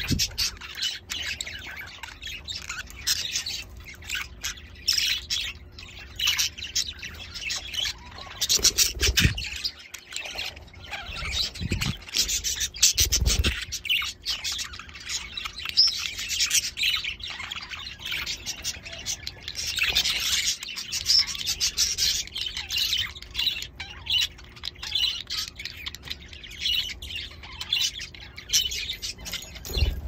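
Budgerigars chirping and chattering in quick, dense runs of high twittering calls, with a few low thumps about a third of the way through.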